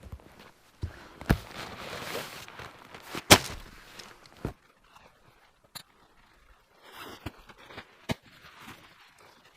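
Footsteps on a trail, with rustling and scattered sharp knocks and snaps underfoot. The loudest snap comes about three seconds in, and the steps thin out after the middle.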